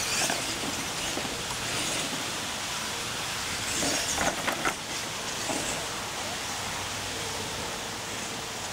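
Radio-controlled monster trucks driving over dirt, their motors and drivetrains running under a steady haze of noise, with a few sharp clattering knocks about four to five seconds in as a truck goes over a ramp and lands.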